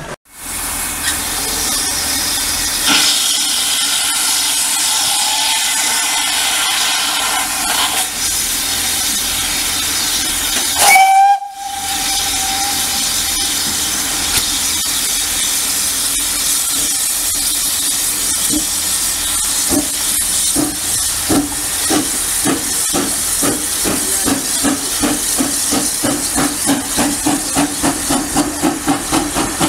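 Steam locomotive working an autocoach train: a steady, loud hiss of escaping steam, a brief whistle note about eleven seconds in, then exhaust beats starting slowly and quickening to about three a second as the train pulls away.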